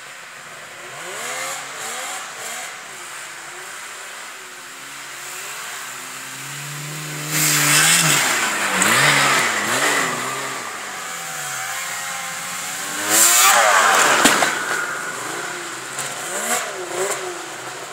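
Snowmobile engine revving up and down as it runs at and over a snow jump. It comes loud and close about seven seconds in, fades, then is loud again around thirteen seconds in.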